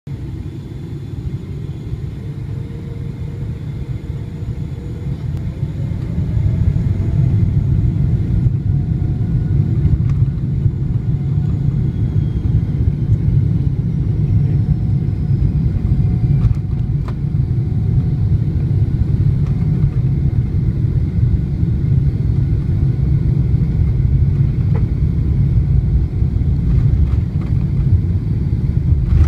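Boeing 777's jet engines heard from inside the cabin over the wing: a steady low rumble that grows louder about six seconds in while a whine climbs in pitch, the engines spooling up as the airliner taxis.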